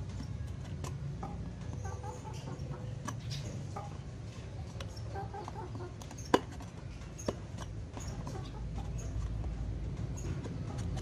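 Small clicks and scrapes of a knife blade worked in a slot cut in PVC pipe, with two sharper clicks about six and seven seconds in, over a low steady rumble. Chickens cluck faintly in the background.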